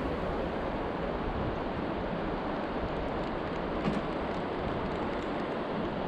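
Steady rushing noise of flowing river water and wind around a kayak, with a light knock about four seconds in.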